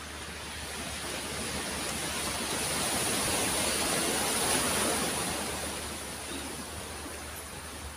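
Sea waves breaking on a stony beach: the rush of surf swells to its loudest about four seconds in, then dies back.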